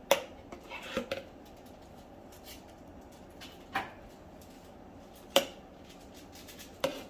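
Dishes and utensils being handled on a kitchen counter: about five separate sharp clinks and knocks a second or so apart, the loudest at the very start and about two-thirds of the way through.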